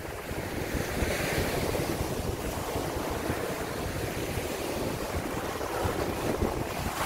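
Small sea waves breaking and washing up a sandy beach in a steady surf hiss, with wind buffeting the microphone.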